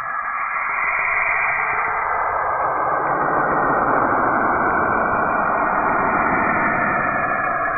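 A 'planet sound' recording: spacecraft radio and plasma-wave data turned into audio, heard as a steady rushing hiss that grows fuller and deeper about two to three seconds in.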